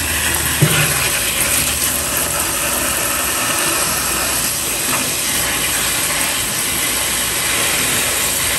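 Kitchen faucet running steadily, its stream splashing onto pea shoots being rinsed in a plastic colander in a stainless steel sink.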